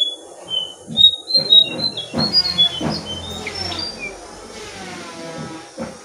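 Jongkangan bird giving a quick run of short, high chirps in the first few seconds, with several dull knocks underneath. After that come fainter pitched calls.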